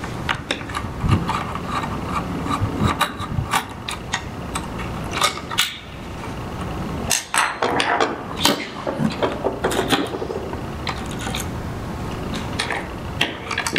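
Small screwdriver unscrewing a terminal screw on a power supply's terminal block, with the wire's crimp lug handled free: scattered small metallic clicks and scrapes.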